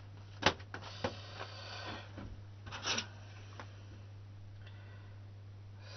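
Sheets of thin card being handled on a bench, rustling and flexing, with a sharp tap about half a second in and another near three seconds. A steady low hum runs underneath.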